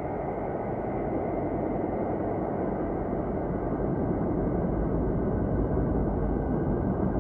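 A steady, low rushing drone with a few faint held tones above it, slowly getting louder: ambient space audio offered as the sound of Saturn.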